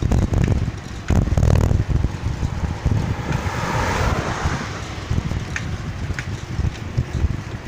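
Wind buffeting the microphone on a moving bicycle: a heavy, uneven low rumble, with a swell of hiss about halfway through and a few light clicks near the end.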